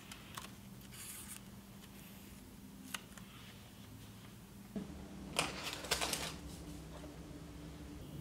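Faint scratchy strokes of a felt-tip marker on a paper calendar, then louder scraping from a spoon in a stainless steel mixing bowl about five seconds in, over a low steady hum.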